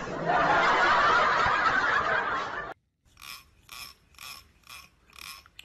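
A loud, steady rushing noise for the first two and a half seconds, cut off abruptly. After a brief silence, the teeth of a plastic comb are strummed with a fingertip in a run of about seven short buzzy zips, roughly two a second.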